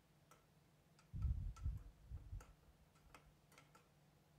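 Cashew pieces frying in ghee in a stainless steel pan, stirred with a metal slotted spoon: faint scattered ticks, with a few soft low knocks about a second and two seconds in.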